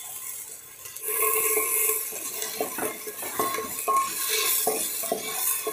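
Sliced onions and ginger-garlic paste sizzling in oil in a metal pot while a spatula stirs and scrapes the pot bottom in repeated strokes; the sizzle grows louder about a second in.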